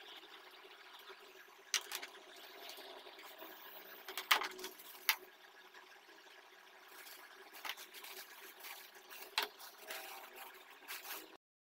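Handling of monitor accessories: clear plastic bags of cables crinkling, with a few sharp clicks and knocks as cables and a power adapter are moved about on a desk. The sound cuts off suddenly near the end.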